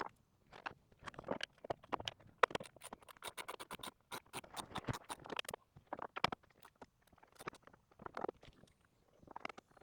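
Hand ratchet clicking in quick runs while turning out the steering-wheel airbag's retaining bolts, densest in the first half, then in shorter bursts.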